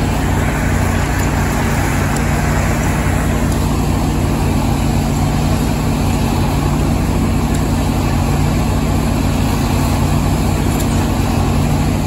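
Heavy equipment engine running steadily, a loud, even drone.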